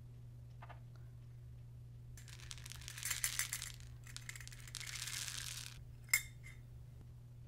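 Small round beads poured from a metal tin into a glass bowl: a dense rattle, a short pause, then a softer second pour, and a single sharp clink about six seconds in.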